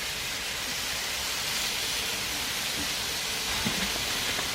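Steady hissing noise, a little louder in the middle, with a faint tap about three and a half seconds in.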